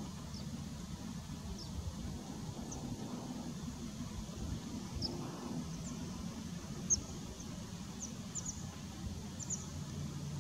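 American pipits calling: thin, high, short chirps at scattered intervals, some in quick pairs, the loudest about seven seconds in. A low steady rumble runs underneath.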